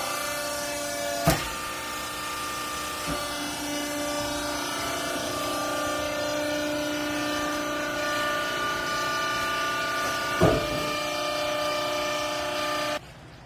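Hydraulic pump unit of a double chamber cloth baler running with a steady whine, with one sharp knock about a second in and another near ten seconds. The running sound cuts off abruptly just before the end.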